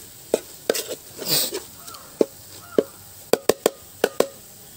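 A wooden spoon stirring thick masala in an aluminium pot: a series of sharp knocks against the pot, with three in quick succession past the middle, and a brief scrape about a second in.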